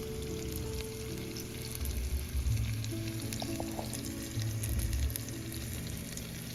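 Breaded pork chops frying in olive oil in a skillet: a steady sizzle with fine crackles. Background music plays under it.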